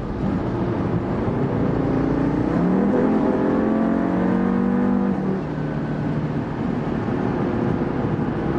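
Audi TT RS's tuned turbocharged five-cylinder engine pulling hard at highway speed, heard from inside the cabin. The engine note climbs in pitch for a few seconds, then falls away sharply about five seconds in and settles into a steady lower drone.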